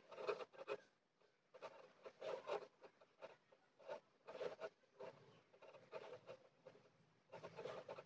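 Wool yarn being pulled through jute burlap fabric with a needle during cross-stitching: faint, short scratchy rubs, about five pulls, each under a second, with quiet gaps between.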